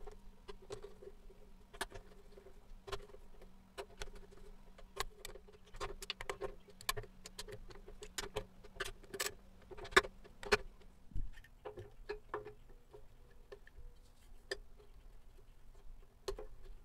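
Socket ratchet clicking in short, irregular runs as the screws of a motorcycle fuel pump's mounting plate are tightened into the tank, with scattered sharp metal clicks between, over a faint steady hum. The clicking is busiest in the middle.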